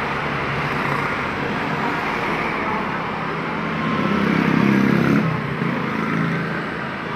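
Roadside traffic with motorbikes and other vehicles passing. One passing engine swells louder about four seconds in and fades a second later.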